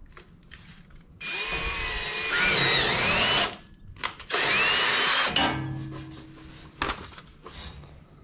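Ryobi cordless drill boring a 3/8-inch hole into a waste holding tank, in two bursts with the motor whine rising and falling under load. The motor winds down after the second burst, followed by a few light clicks.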